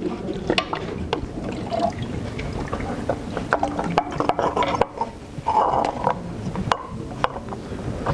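Water running and splashing at a toilet's cistern, with many small clicks and knocks of hard plastic parts being handled.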